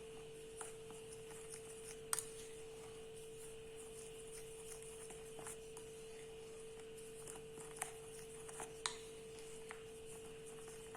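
A utensil stirring dry flour ingredients in a mixing bowl: faint scattered clicks and taps against the bowl, a few sharper ones about two seconds in and near the end, over a steady low hum.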